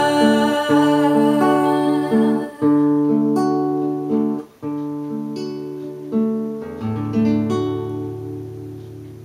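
Nylon-string classical guitar fingerpicking a repeating arpeggio, with a few strummed chords, in the closing bars of the song. About seven seconds in, a final chord is struck and left to ring, fading away.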